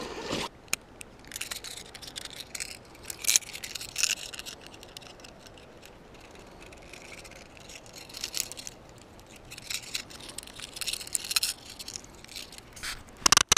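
Close handling noise from a hard-plastic fishing lure being taken from its cardboard box and turned over in the fingers: scattered rustles, scrapes and light clicks, with a sharp click near the end.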